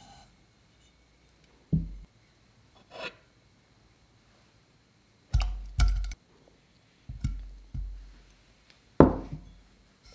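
Kitchenware being handled and set down: about seven separate soft knocks and clunks, the loudest a pair about halfway through and one near the end.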